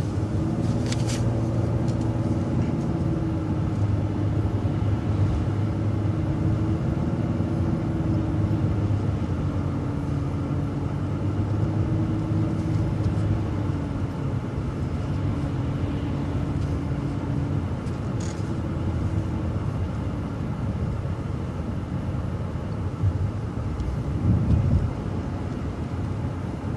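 City transit bus driving along: a steady engine and drivetrain drone with road noise, its pitch drifting up and down a little with speed. There is a brief louder low surge near the end.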